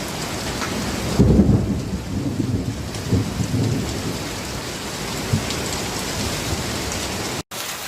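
Hail and heavy rain beating down in a steady hiss during a storm with strong wind. About a second in, a deep rumble swells for over a second, then fainter rumbles follow.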